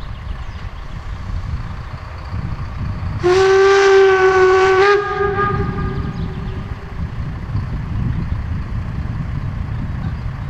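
A steam locomotive's whistle sounds one blast of just under two seconds, about three seconds in: a single steady chord that lifts slightly in pitch just before it cuts off.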